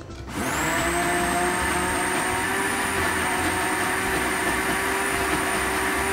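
Russell Hobbs countertop blender switched on about a third of a second in. Its motor quickly spins up, then runs at a steady high whine, blending a thin tahini and garlic sauce.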